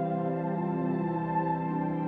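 Background music: slow ambient music of long held chords that change a couple of times.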